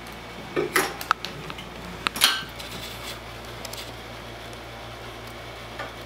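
Small metallic clicks and scrapes from a Torx screwdriver working the screws on an iMac's metal display frame. They come in two short clusters, about half a second in and again about two seconds in, over a steady low hum.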